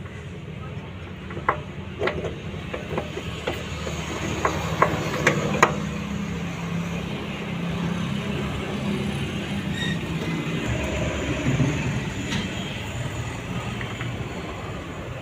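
Metal parts and hand tools clinking and knocking against a small motorcycle engine as it is worked on, with about a dozen sharp clicks in the first six seconds. A steady low motor hum runs underneath throughout.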